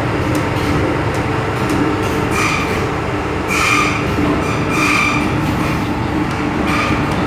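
Inside an MTR M-Train electric multiple-unit car running between stations: a steady rumble of wheels and running gear with a low hum. From about two seconds in, four short high-pitched squeals from the wheels.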